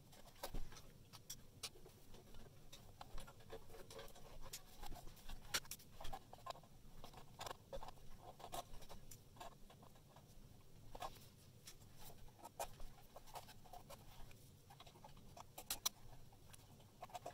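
Faint, irregular clicks, taps and scratchy rustles of wires and a hand tool being handled inside a sheet-metal electrical box during rewiring.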